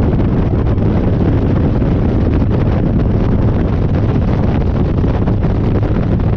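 Harley-Davidson Dyna V-twin running at a steady cruising speed on the road, heavily buffeted by wind on the microphone. The sound holds steady, with no revving or gear changes.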